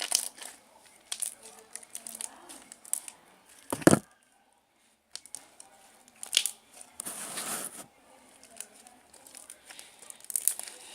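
Slime being squished and stretched by hand, giving crackling clicks and pops, with one sharp pop just under four seconds in and a longer wet rustling squish around seven seconds in.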